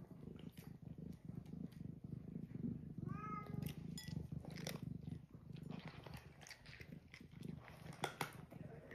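A cat purring steadily while cats crunch dry kibble from a bowl, with many small clicks of chewing. One short meow about three seconds in.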